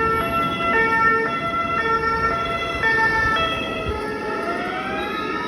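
Emergency vehicle siren sounding a two-tone hi-lo call, switching pitch about every half second. From about four seconds in, a second, wailing siren rises in pitch over it.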